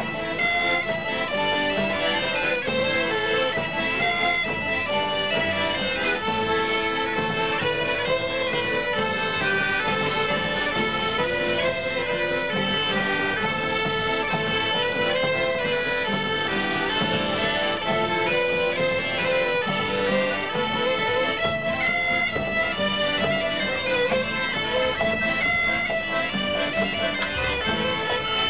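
Traditional French folk ensemble playing a rondeau: bagpipe and button accordions carry the tune over fiddle and guitar, continuous and steady throughout.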